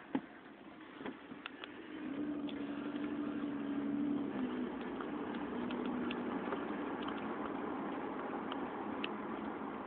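Nissan Altima Coupe's 3.5-litre V6 with an aftermarket Weapon R intake running steadily, heard from inside the cabin with road noise. The hum grows louder about two seconds in and then holds at an even pitch. There is a single knock right at the start.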